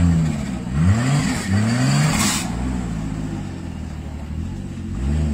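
Off-road vehicle's engine revving in short repeated bursts, three in the first two seconds, then running lower and steadier, with one more rev near the end.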